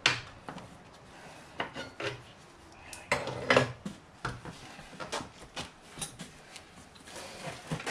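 Scattered metal clinks, knocks and scrapes of a long breaker bar and axle hardware as the rear wheel is worked off a 2006 Honda CBR600RR, with a louder clatter about three and a half seconds in.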